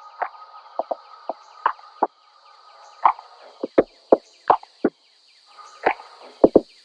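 A parrot cracking and crunching food with its beak: irregular sharp cracks and crunches, some in quick pairs, over a faint steady high hum.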